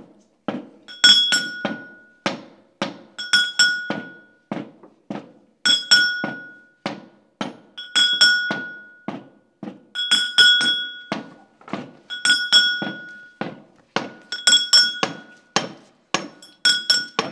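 Brass mortar and pestle (hawan) being pounded: groups of three or four quick metal strikes every couple of seconds, each strike ringing brightly.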